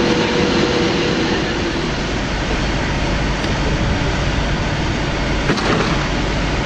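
A Class 390 Pendolino electric train running past with a steady two-note electrical hum over rumble, which stops after about a second and a half. Then a Class 350 Desiro electric unit comes in towards the platform with a steady rumble and hiss of wheels on rail.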